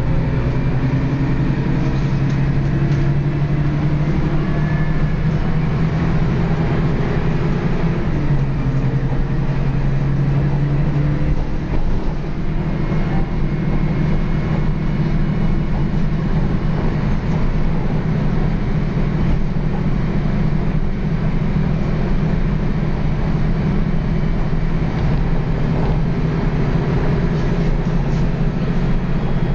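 Dennis Lance single-decker bus's diesel engine and ZF gearbox growling steadily under way, heard from inside the passenger saloon, with a brief dip in level about twelve seconds in.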